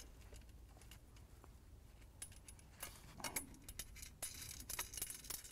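Small metal hardware clinking as a nut is threaded onto a quarter-inch bolt by hand, with washers and the bolted metal strut ends ticking against each other. It is nearly silent for about two seconds, then comes a run of quick, faint clinks and ticks.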